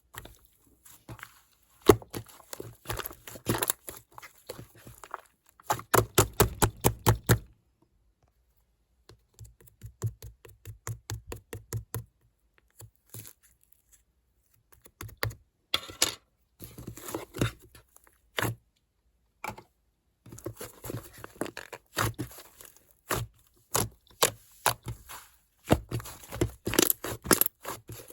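Hands pressing, poking and folding clay-textured slime, giving rapid runs of small clicks and pops, with brief quiet pauses between the runs.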